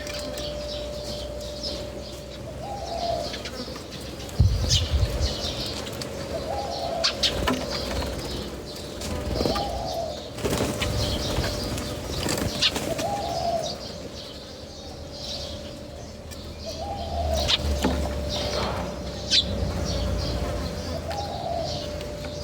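Pigeons cooing, a short rising-and-falling note repeated every few seconds, with wing flapping and scattered high chirps and ticks among them.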